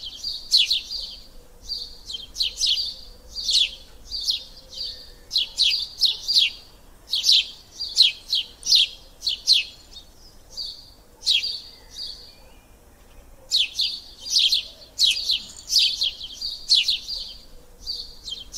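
A small bird chirping over and over: quick runs of short, sharp chirps that drop in pitch, several a second, with a pause of about two seconds a little past the middle.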